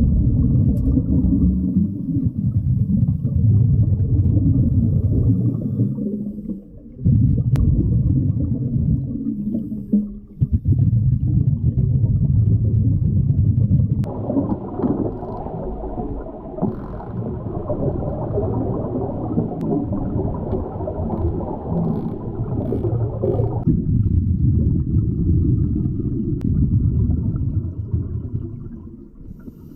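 Muffled underwater rumble and bubbling from a diver breathing out through his mask, picked up by a camera submerged in the water, coming in surges of a few seconds with a few sharp clicks.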